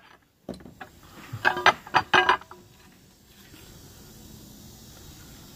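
A quick cluster of sharp metallic clinks and knocks about a second and a half in, from engine parts or tools being handled on a bare aluminium engine block. Faint steady background noise follows.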